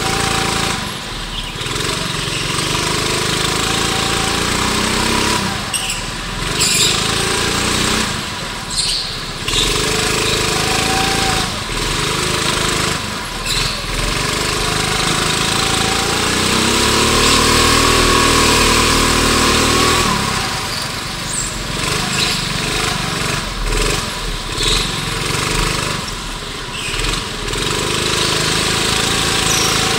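Go-kart engine at racing speed, heard from on board. The revs rise and fall over and over, dipping briefly as the throttle is lifted for the corners, with one long pull rising and then falling about two-thirds of the way through.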